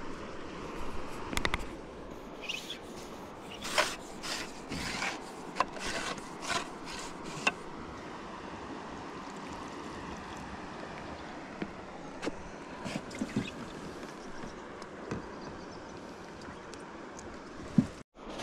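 Scattered light clicks and knocks of fishing tackle being handled in a small boat, bunched in the first half, over a steady outdoor hiss.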